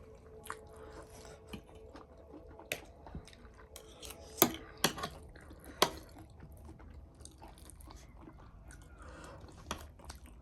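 A person chewing food close to the microphone, with a few sharp clicks about halfway through.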